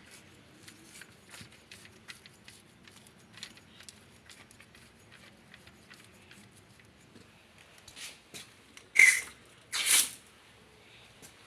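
Small plumbing fittings being handled: scattered light clicks and taps, then two short, loud rasping noises about nine and ten seconds in.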